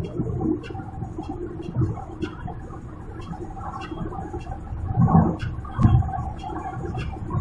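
Road and engine rumble inside a car's cabin at highway speed, with two brief louder swells about five and six seconds in.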